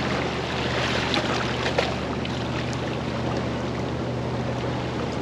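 Water sloshing against jetty rocks and wind, over a steady low motor hum from a boat out on the water.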